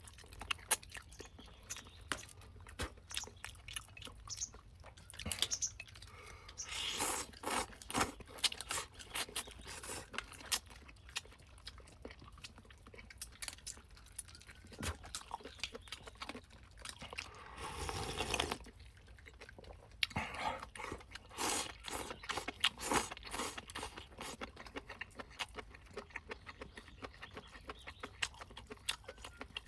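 A person chewing and crunching while eating free-range chicken: many short, irregular mouth clicks and crunches, with one longer noisy stretch about eighteen seconds in.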